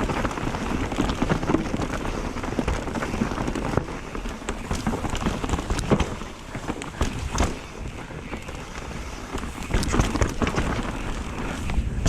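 Mountain bike descending a rough dirt trail: tyres rolling over the ground, and the bike rattling with many sharp knocks over bumps, with wind noise on the microphone.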